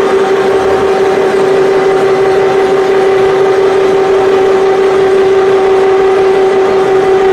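Steady loud drone of running workshop machinery: one strong even hum with a fainter higher tone above it, over a constant rushing noise.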